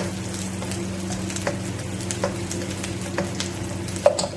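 Cubed onion sizzling in hot oil in a pan while a spatula stirs it, knocking against the pan at irregular intervals with a louder knock near the end. A steady low hum runs underneath.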